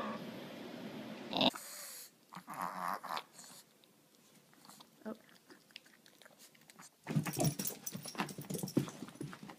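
A dog's sounds, then a busy run of quick clicks and knocks over the last two or three seconds.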